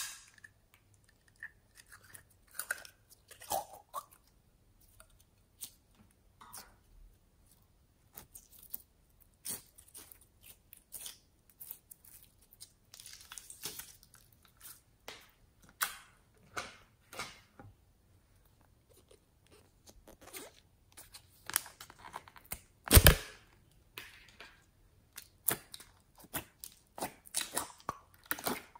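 Slime being squeezed and pressed by hand and pulled out of plastic containers: scattered sticky clicks and crackles, with one much louder crack about six seconds before the end.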